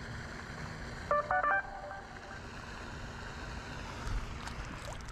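A quick run of three or four short electronic beeps, like phone keypad tones, about a second in. They are heard over a steady outdoor background hiss.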